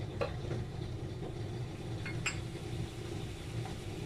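Steady low rumble of a gas stove burner under a pan of milk that has just come to the boil. Two light clicks sound, one just after the start and one a little past two seconds in.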